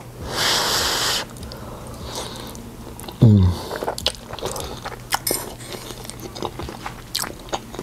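A man blowing on a forkful of hot lasagna, then a short falling hum about three seconds in, followed by chewing with small clicks of a metal fork against a ceramic bowl.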